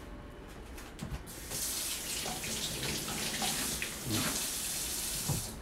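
Water running steadily from a kitchen tap, starting about one and a half seconds in and stopping just before the end.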